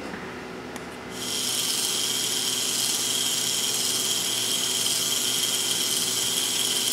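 Small electric K'nex motor switched on about a second in, then running steadily with a high whine through its plastic gear train as it drives the chain that pulls a camera dolly.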